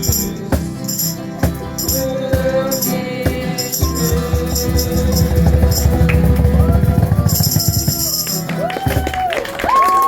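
Group of ukuleles strumming with a tambourine shaken in rhythm and a long held sung note, the song ending about eight and a half seconds in; voices start up right after.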